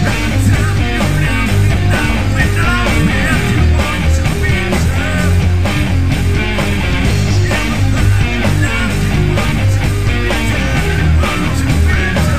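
Rock music with a steady drum beat and guitars.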